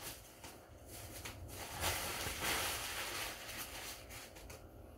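White tissue packing paper rustling and crinkling as it is handled and crumpled, louder for a couple of seconds in the middle.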